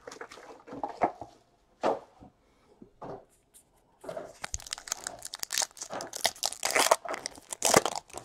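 A few scattered handling clicks, then from about four seconds in a baseball card pack's plastic wrapper being torn open and crinkled by hand, in quick dense crackles that are loudest near the end.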